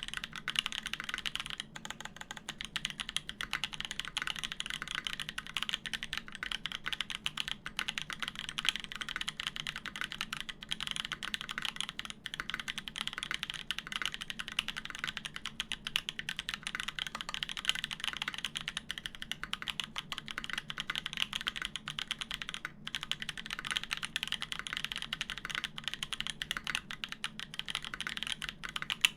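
Continuous fast typing on a mechanical keyboard with lubed Gazzew Boba U4T tactile switches on a polycarbonate plate, GMK keycaps; a steady stream of muted key clacks with no pauses.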